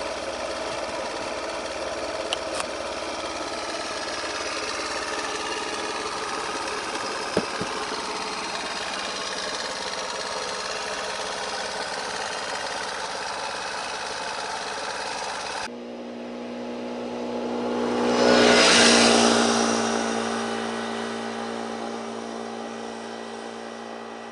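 Piaggio Liberty S 50 scooter's small engine running steadily. After a cut, the scooter rides past, its engine sound swelling to a peak and then fading as it rides off into the distance.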